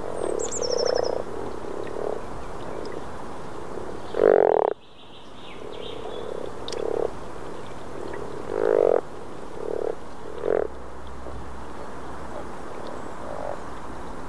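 Common frogs (Rana temporaria) croaking: a string of short, low croaks spaced a second or two apart. The loudest comes about four seconds in and cuts off abruptly.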